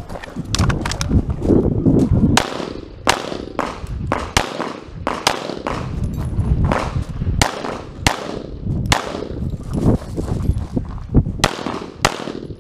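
Semi-automatic pistol firing many sharp shots in quick succession, often as pairs close together, as targets are engaged, with a low rumble between the shots.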